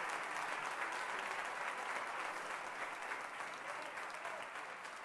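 Audience applauding, a dense even clapping that slowly dies away.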